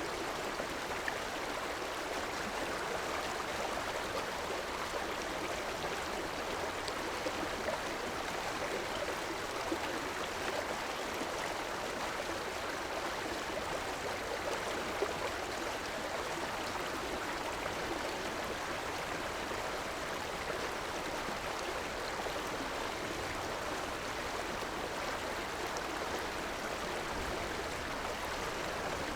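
River water flowing and splashing steadily, a continuous rushing with small scattered splashes.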